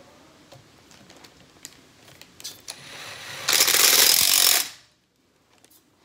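Faint handling clicks, then a cordless screwdriver spins up and runs loud for about a second, driving one of the screws that hold a ceiling fan's downrod in place, and stops.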